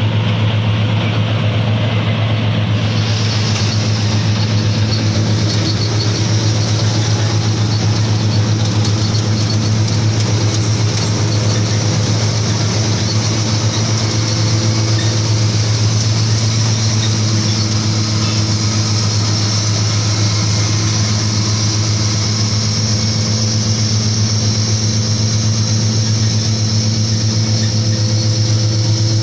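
Balkar combine harvester running steadily, its engine giving a strong, even low hum, with a higher hiss joining about three seconds in.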